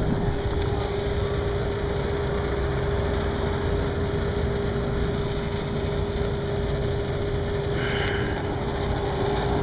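Kawasaki KLR's single-cylinder motorcycle engine running steadily with an even low rumble and no revving.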